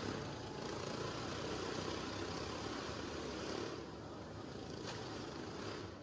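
Several motorcycles running steadily as they circle the vertical wooden wall of a wall-of-death drome, their engine noise echoing round the boarded drum.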